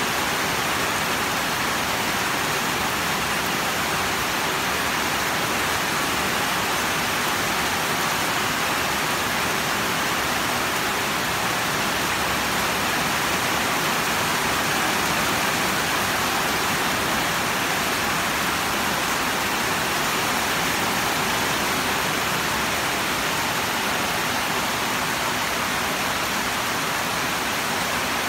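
Steady rainfall, a continuous even hiss of rain coming down without a break.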